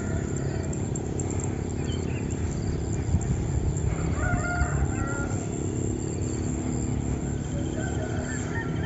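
A rooster crowing about four seconds in, with small birds chirping throughout over a steady low background noise.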